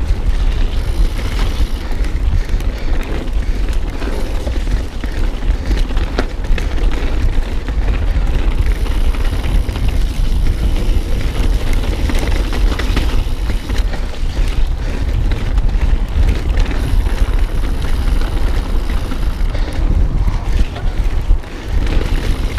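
Mountain bike riding down a wet, icy dirt trail: wind rumbling on the camera microphone over tyre noise, with scattered knocks and rattles from the bike over rough ground.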